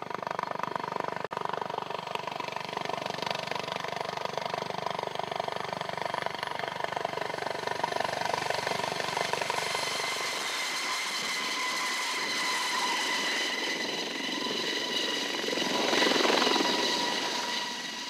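Dauphin helicopter lifting off: fast rotor-blade chop under a steady turbine whine. About halfway through the deep chop thins out as it climbs away; it swells briefly near the end, then fades.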